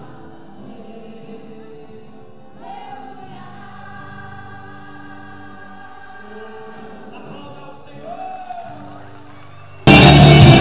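Choir singing a gospel worship song over backing music, fairly soft. Near the end the sound jumps abruptly to much louder, distorted music.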